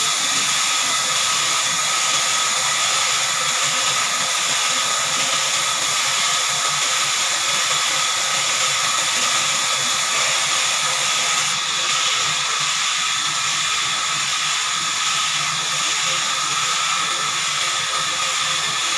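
Horizontal band sawmill's blade cutting through a large log: a steady hiss with a high whine, and a faint regular pulse in it throughout.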